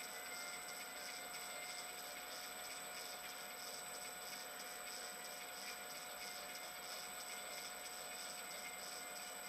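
Steady hiss with a faint high whine and a soft pulsing about twice a second, from a camera recording inside its sealed housing, which lets almost no sound from the workshop through.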